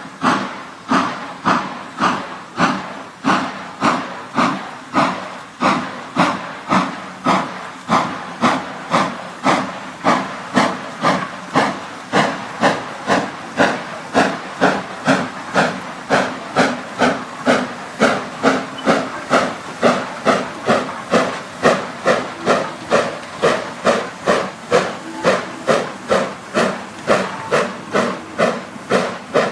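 Hunslet 'Austerity' 0-6-0ST saddle-tank steam locomotive working hard up a gradient with a loaded freight train: its two-cylinder exhaust barks in a loud, even beat of about two a second, over a steady hiss of steam.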